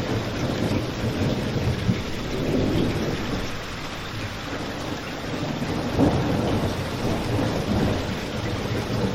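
Steady heavy rain with a deep low rumble underneath, and a single sharp pop about six seconds in.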